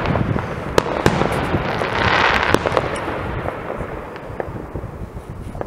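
Fireworks going off across a wide area at once: a continuous din of distant bangs with sharp nearer cracks. A hissing crackle swells about two seconds in, then the bangs thin out and grow quieter toward the end.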